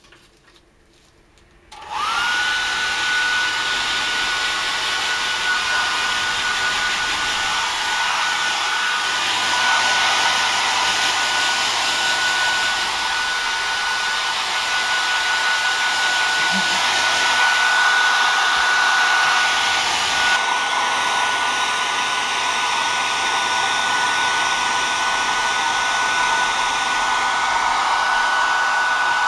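Hand-held hair dryer switched on about two seconds in, its motor spinning up to a steady high whine over the rush of blown air. The air noise shifts slightly about twenty seconds in.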